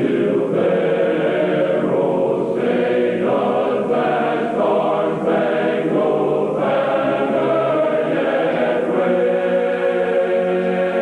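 Choir singing in long held chords that change every second or two, a choral rendition of the national anthem.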